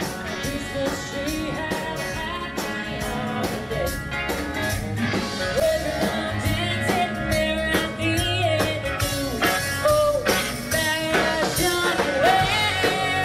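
Live rock band playing through a PA: electric guitars, bass and drums with a singer over a steady beat.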